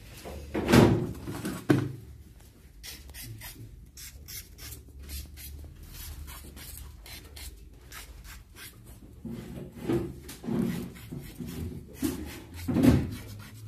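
Scraping and rubbing of insulated lead wires handled on a freshly wound electric-motor stator, with many small clicks. There are two loud knocks in the first two seconds and another near the end.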